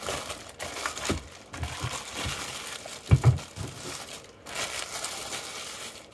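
Thin plastic bag crinkling as it is pulled off a car battery charger, with a dull thump about three seconds in as the charger is set down on the table.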